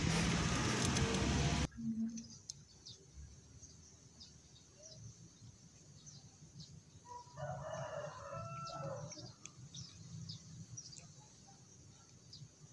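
A loud, steady rushing noise cuts off abruptly about two seconds in. Near the middle a rooster crows once for about two seconds. Faint clicks and smacks of a cat eating from a bowl run underneath.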